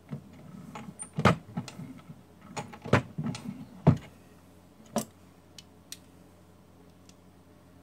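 Sharp metallic clicks and knocks from working a single-stage reloading press to seat a bullet in a 224 Valkyrie cartridge, then handling the loaded round. The loudest knocks fall in the first four seconds, with a few lighter ticks after.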